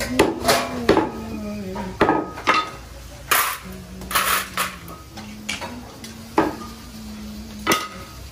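Heavy meat cleaver chopping mutton on a wooden butcher's block: about a dozen sharp, irregular chops, some close together and some a second or more apart.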